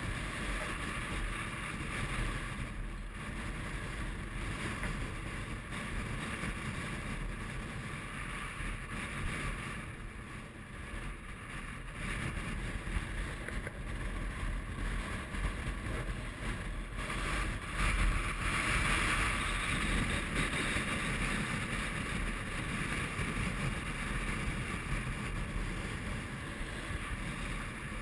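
Strong mountain wind buffeting the camera microphone: a steady rushing rumble that swells louder about two-thirds of the way through.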